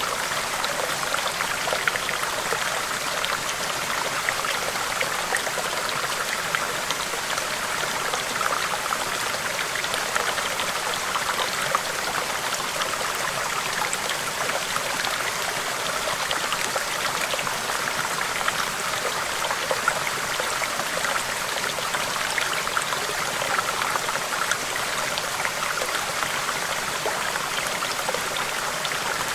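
Small stream flowing over rocks: a steady babbling, thick with tiny splashes and gurgles.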